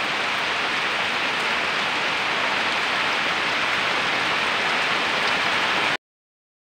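Heavy rain pouring steadily on oil palms and waterlogged ground, a dense even hiss. It cuts off abruptly near the end.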